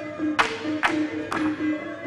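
Bamboo poles knocked together and against the stage floor for a bamboo pole dance, sharp wooden clacks about twice a second in time with music that has a short repeating melody.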